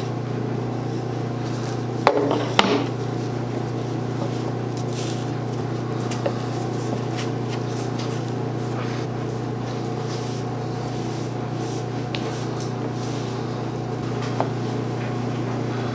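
Hands working wet felt into the pockets of a wooden template on a workbench: soft rubbing with a few light wooden knocks, the two sharpest about two seconds in, over a steady low hum.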